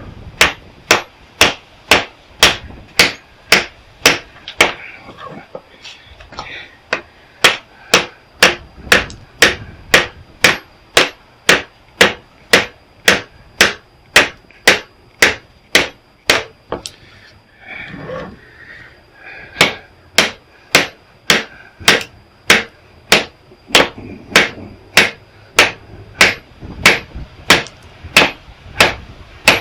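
Steady hammer blows, about two a second, on a scrapped welder's copper transformer winding to drive it out of its case. There are two short pauses partway through.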